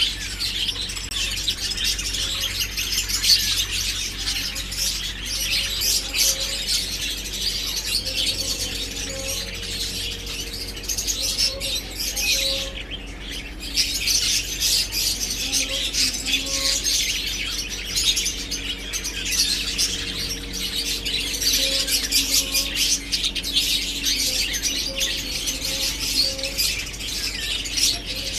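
A group of lutino budgerigars chirping and chattering continuously, many quick overlapping high chirps, over a steady low hum.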